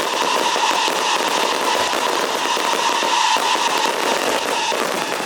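Fireworks barrage going off in a dense, continuous crackle, with a steady tone held through it that stops near the end.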